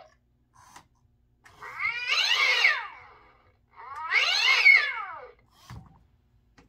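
Gemmy Fraidy Cat animatronic playing two recorded cat yowls through its speaker, each about a second and a half long, wavering up and down in pitch with a hissing edge. A short low thump comes near the end.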